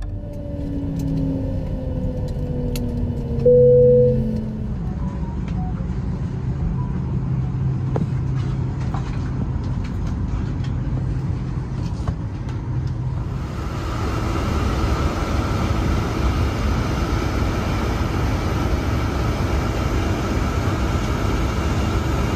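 Boeing 737 MAX 9's CFM LEAP-1B jet engines winding down after shutdown, two tones sliding slowly lower in pitch, with a short clear tone about four seconds in. After that there is a steady low rumble, which turns brighter and hissier from about thirteen seconds in.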